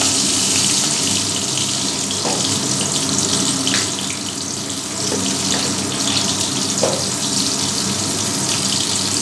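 Pieces of pointed gourd frying in hot mustard oil in an aluminium kadai, a steady sizzling hiss.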